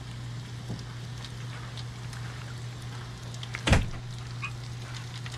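Hot frying oil crackling faintly, with scattered small pops, over a steady low hum. About two-thirds of the way in comes one short, loud knock.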